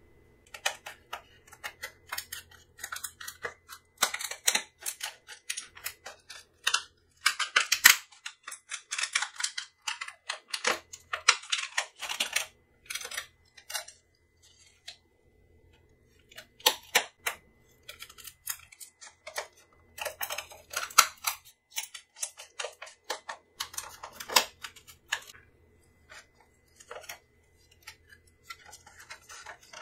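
Clear plastic blister packaging crackling and clicking as it is flexed and pried open by hand, in irregular crisp bursts with a couple of short pauses.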